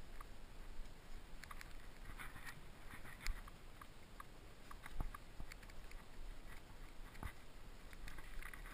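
Scattered scuffs, scrapes and sharp little clicks of a rock climber moving on sandstone: chalked hands and rock shoes shifting on the rock, with a few sharper knocks about a third, halfway and three quarters of the way through.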